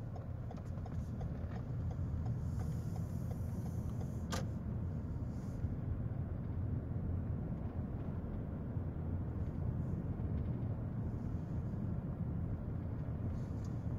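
Steady low rumble of a car's road and engine noise heard from inside the moving car, with one sharp click about four seconds in.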